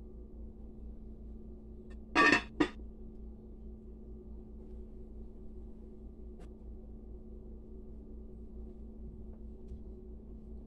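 Glass slow-cooker lid set down onto the stoneware crock, two quick loud clinks about two seconds in, then a faint tick a few seconds later. A steady low hum runs underneath.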